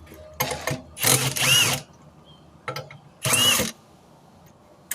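Handheld power tool run in two short bursts, its motor winding up and back down in pitch each time, with a few short clicks between, during a tire change.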